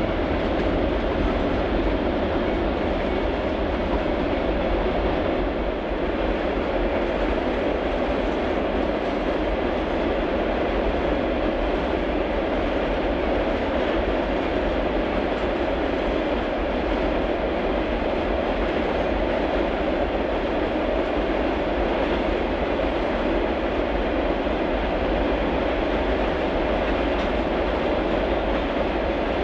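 A string of steel iron ore hopper cars rolling past, a steady rumble and rattle of wheels on rail that never lets up.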